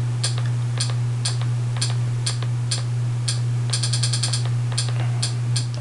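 Clicks of the handheld controller as a channel list is scrolled: single clicks about twice a second, with a quick run of rapid clicks a little past the middle. A steady low hum sits underneath.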